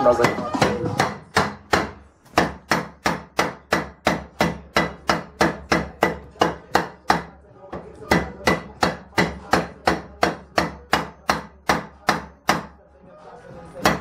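Blacksmith's hand hammer striking a hot metal bar on an anvil while forging a fireplace poker: steady blows at about three a second, in runs broken by short pauses about two seconds in, midway and near the end.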